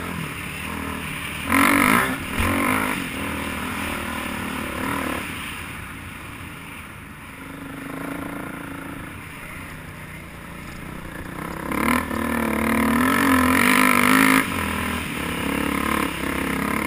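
Dirt bike engine running under way. It is opened up sharply just under two seconds in and again for a few seconds near the end, and runs quieter with the throttle eased in between.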